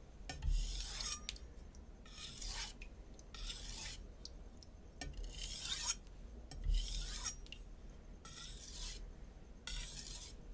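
Steel knife edge of a Shun Classic chef knife drawn across a 400-grit Naniwa Super Stone whetstone in about seven short, light scraping strokes, roughly one every second and a half. The stone is really silent because the burr has fallen off and the edge has cleaned up.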